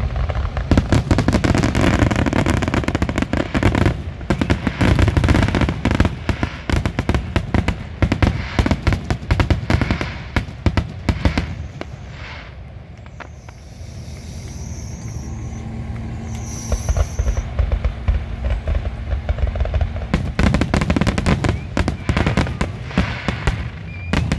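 Fireworks display: a rapid, dense barrage of booms and crackling bursts, easing off to a quieter stretch about halfway through, then building into another dense barrage near the end.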